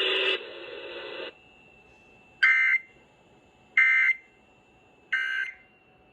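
Emergency Alert System end-of-message signal: three short, identical screeching data bursts about a second and a half apart, marking the end of the alert. A louder sound cuts off within the first second and a half, and a faint steady whine sits between the bursts.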